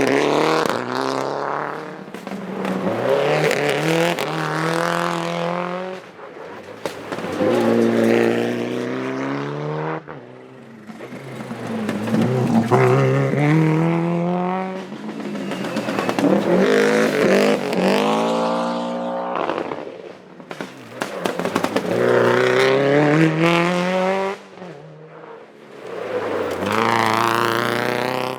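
Rally car engines accelerating hard, pitch climbing through each gear and dropping back at every shift, in several loud runs one after another, with sharp cracks in between.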